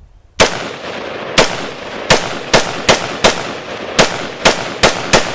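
About ten sharp, loud bangs at uneven intervals, over a steady hiss that starts with the first bang.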